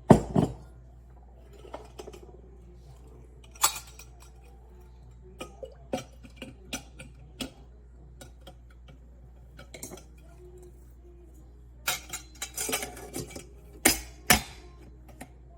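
Stainless-steel percolator parts being handled: scattered metallic clinks and knocks, with a busier cluster of them near the end.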